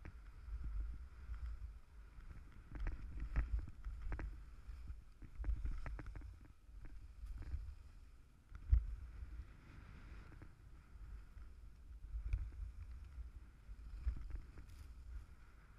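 Wind buffeting an action camera's microphone during a ski run, an uneven low rumble, with the hiss and scrape of skis on packed snow. A single louder thump comes close to nine seconds in.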